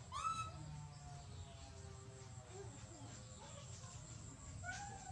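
A young animal's short, high-pitched squeal just after the start that rises and then falls in pitch, and another near the end, over a faint low hum.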